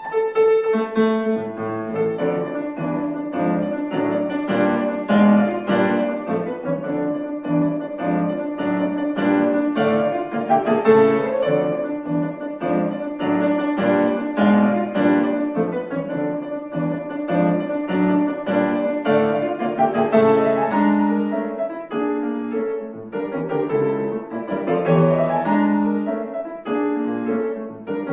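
Piano playing a classical piece: a steady stream of quick notes with a changing melody and chords.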